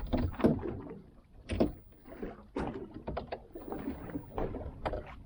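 Irregular knocks, clatter and splashy rustling as a snapper is hauled aboard a small fishing boat and handled.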